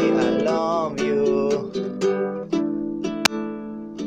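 Classical guitar strummed in steady chords, with a man's voice holding a sung note that trails off in the first second. A single sharp click on the guitar comes about three seconds in.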